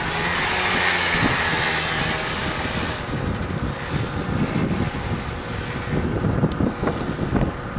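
Small engine of a 50cc children's quad (ATV) running as it rides close past on a gravel dirt track. It is loudest and hissiest for the first three seconds, then fainter as the quad pulls away.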